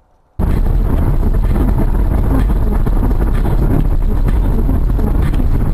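Steady road and engine noise of a moving car, heard through a dashcam microphone inside the car, loud and heaviest in the low end. It cuts in suddenly about half a second in.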